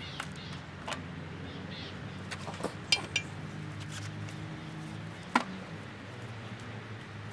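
Garden background with a steady low hum, broken by a few short sharp clicks and clinks of painting tools, the loudest about five seconds in. A brief high bird chirp comes about three seconds in.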